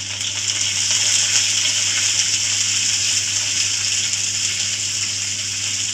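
Sliced onions sizzling in hot oil in a steel kadhai, a steady hiss that swells over the first second as they hit the oil.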